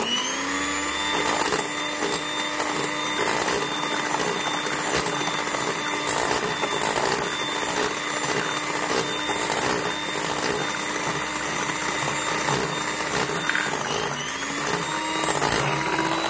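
Electric hand mixer running, its beaters whipping egg whites in a bowl. The motor whine rises as it starts, holds steady, then briefly drops and climbs back up near the end.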